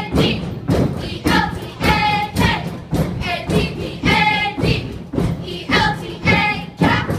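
Step team stepping: booted feet stomping on the stage in a steady rhythm, about two strokes a second, with the whole group shouting a chant in unison between the stomps.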